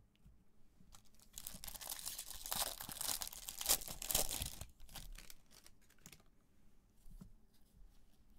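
Shiny foil wrapper of a 2020 Bowman Draft baseball card pack being torn open by hand: a loud crinkling tear lasting about three seconds, then softer crinkles as the stack of cards is drawn out.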